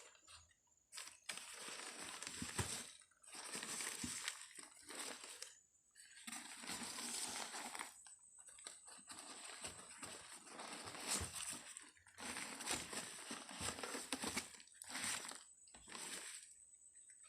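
Packaging crinkling and rustling in irregular stretches as it is handled and unwrapped, with a few sharp crackles.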